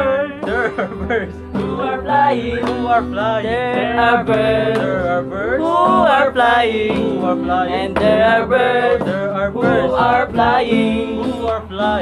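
Several young men singing together to an acoustic guitar, with the voices over steady held chords.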